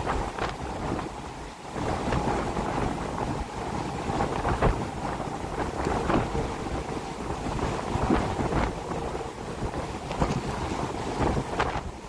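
Wind buffeting the microphone outdoors: an uneven noise that swells and drops in irregular gusts, with no steady tone.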